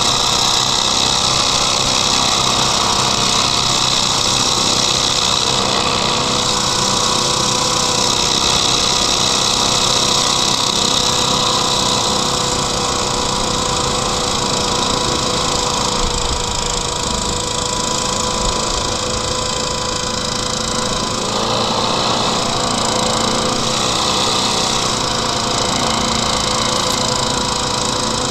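Small hovercraft's engine and air propeller running steadily at speed over snow. Its pitch shifts about three-quarters of the way through as the craft slows.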